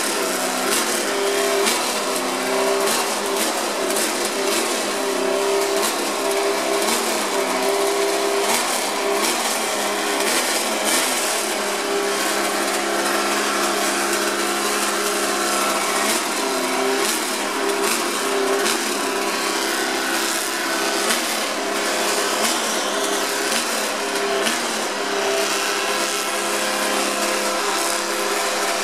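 1968 Honda RA301 Formula One car's V12 engine idling during warm-up, a steady high-pitched running note that rises and dips a little in pitch.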